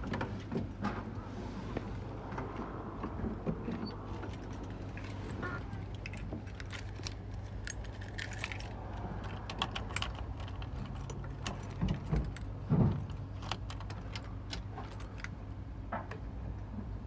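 Keys jangling, with scattered small clicks and knocks of handling inside a pickup's cab, over a steady low hum.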